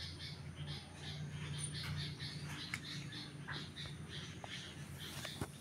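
Small birds chirping: many short, high chirps repeating a few times a second, over a low steady hum.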